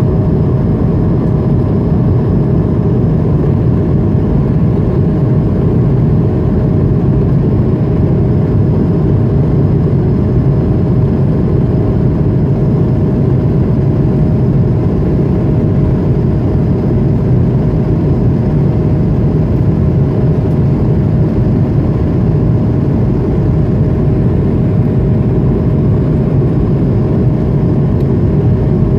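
Steady cabin noise of an Airbus A220-100 climbing after takeoff, heard from inside the cabin: the roar of its Pratt & Whitney PW1500G geared turbofan engines and rushing air, with a thin steady hum above it.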